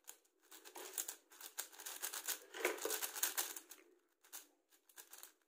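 YJ MGC 6x6 magnetic speed cube being turned by hand: a quick run of plastic clicks and rattles as the layers snap round, pausing briefly a few times in the second half.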